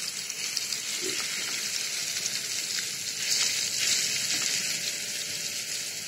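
Masala-coated fish pieces sizzling and crackling in hot oil in a nonstick frying pan as more pieces are laid in. The sizzle gets louder for a moment a little after three seconds in, when another piece goes into the oil.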